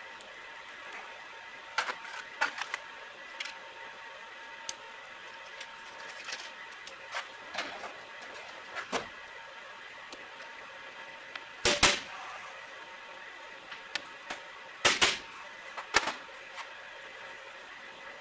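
Screwdriver and hand tools working the screws of a 1948 Chevrolet Delco-Remy starter's switch during disassembly: scattered clicks and knocks of tool on metal, loudest about twelve and fifteen seconds in, over a faint steady hum.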